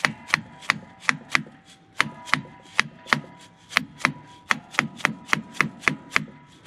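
Rubber mallet tapping repeatedly on an SDI transmission alignment bar bolted to a Polaris General XP 1000's engine and transmission shafts, about three light taps a second, quickening in the second half, each with a short metallic ring. The taps are nudging the loosened transmission back into line with the engine.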